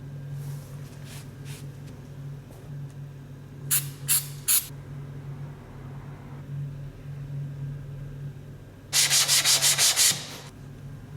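Sandpaper scraped over wood in short strokes: three strokes about four seconds in, then a quick run of about eight strokes near the end, over a steady low hum.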